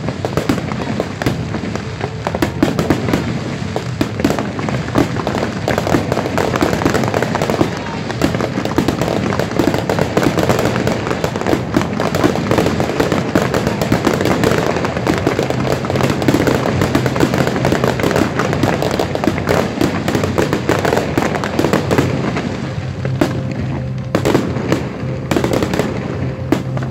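Fireworks display: a dense, continuous barrage of shell bursts and crackling, thinning briefly near the end, with music playing underneath.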